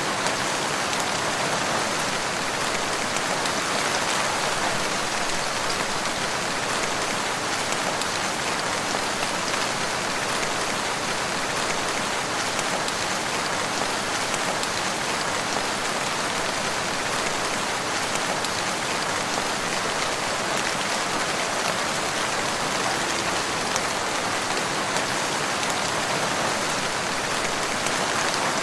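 Steady rain falling, with a dense patter of drops on a surface and no let-up.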